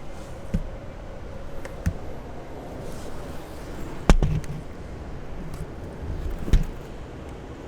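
Four short sharp knocks over a steady low background rumble; the loudest comes about halfway through.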